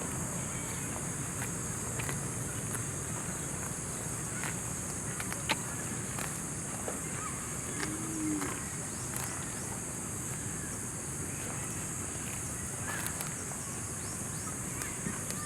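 Rural outdoor background with a steady high-pitched insect drone and scattered light clicks and knocks.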